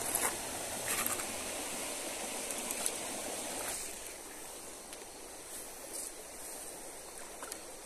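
Flowing river water: a steady rush that eases a little after about four seconds, with a few faint clicks over it.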